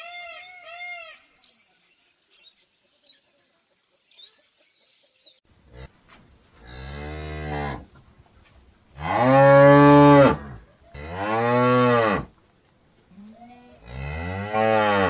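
The tail of a peacock's run of short, high, repeated calls ends about a second in. After a few seconds of near quiet, cattle moo: four long, deep moos, the loudest around ten seconds in.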